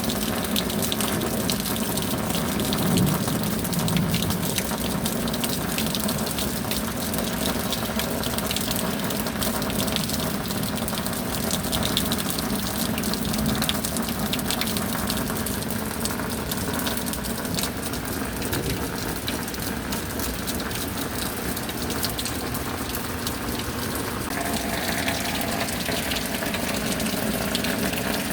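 Steady tropical rain with a constant rush of running water and dense pattering drops; the sound shifts slightly about three-quarters of the way through.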